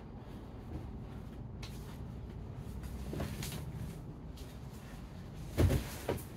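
Bodies scuffing and shifting on folding vinyl-covered foam mats during grappling, then two dull thumps on the mats near the end, the first the louder.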